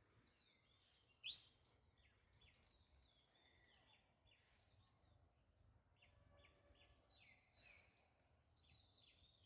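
Birds chirping and calling, faint: a few sharp, high chirps in the first three seconds, then softer scattered calls over quiet outdoor background noise.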